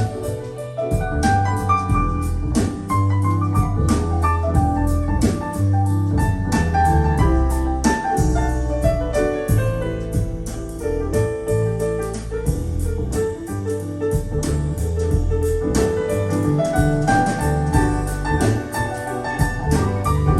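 Music with piano, a strong bass line and regular cymbal ticks, played back through KEF LS50 Meta bookshelf speakers and two subwoofers and heard in the room.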